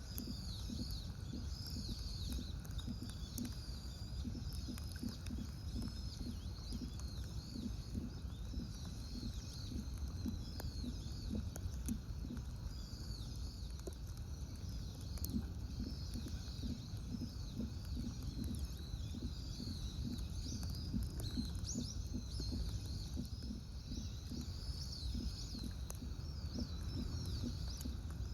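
Many small birds chirping and calling in quick, overlapping high notes, over a low steady rumble of outdoor background noise.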